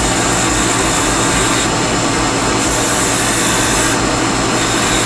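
Wood lathe running at high speed while a small hand file rubs against the spinning wooden workpiece. The file's scraping comes and goes three times over the lathe's steady running.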